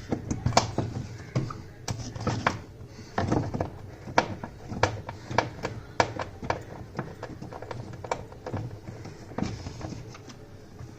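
Irregular metal clicks and knocks, several a second, of a screwdriver working a screw out of a washing machine's gearbox mounting.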